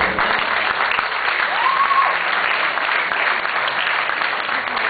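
Audience applauding steadily, with one short whistle rising and falling in pitch about two seconds in.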